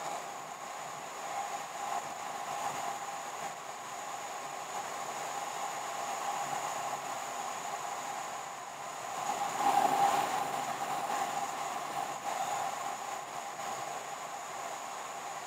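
Steady road noise of a car being driven, growing louder for a couple of seconds about ten seconds in.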